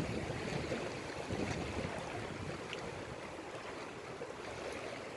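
Small waves washing over the stones of a rocky sea shore: a steady, even wash of water.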